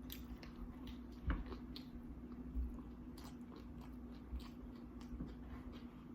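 Close-miked chewing and biting of seafood nachos, with short, scattered crunches of tortilla chips.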